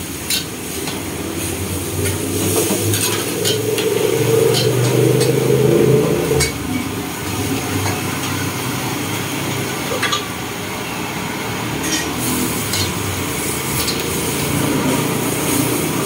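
Metal ladle clinking and scraping in a steel wok during stir-frying, over the steady rush of a high-flame gas wok burner and the sizzle of frying vegetables. A low hum swells and stops sharply about six and a half seconds in.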